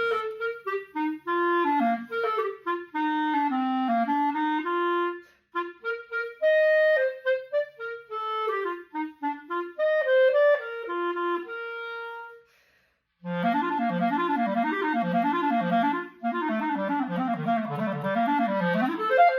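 Solo clarinet played on a more open 9/5 mouthpiece: a slow melodic phrase, then, after a short pause about two-thirds through, fast runs up and down in the low register.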